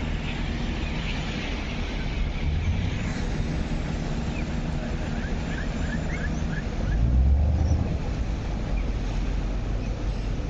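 Harbour ferry's diesel engine running with a steady low hum, with wind buffeting the microphone and a stronger gust about seven seconds in. A few faint, short high chirps come around the middle.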